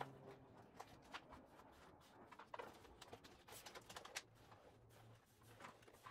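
Faint rustling and crackling of plastic stencil film being peeled from its backing and smoothed down by hand, in scattered soft crinkles.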